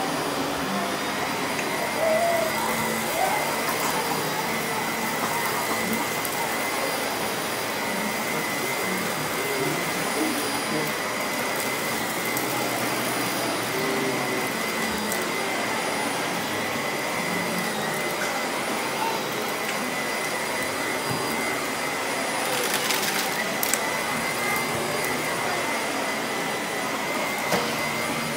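Vacuum cleaner running steadily, with a constant high motor whine over its rushing air noise.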